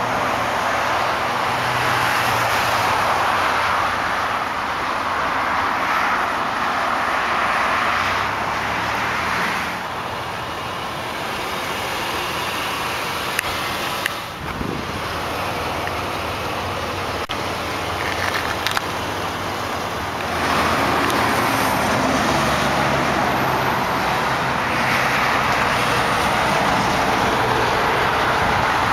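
Steady rush of road traffic that swells and fades several times, over the low hum of a car engine idling close by.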